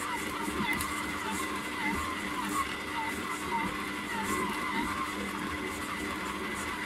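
Aobosi 6L stand mixer running steadily with a whining motor as its dough hook kneads a still slightly dry bread dough in the stainless steel bowl. Short squeaks recur irregularly a couple of times a second.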